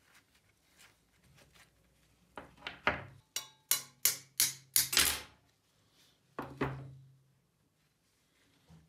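Rusty steel hacksaw frame and its parts knocking and clattering as it is taken apart: a few faint clicks, then a quick run of about eight sharp metallic knocks, some ringing briefly, and one more clatter a little later.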